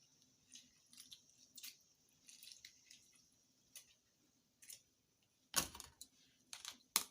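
Light kitchen handling noises at a bowl: scattered small clicks and scrapes, with a louder knock about five and a half seconds in and two sharp clicks near the end.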